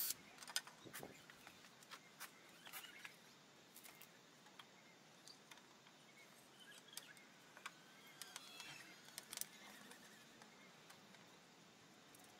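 Near silence, broken by faint, scattered light clicks and knocks as wooden seat slats and bolts are handled and set against a cast-iron bench frame.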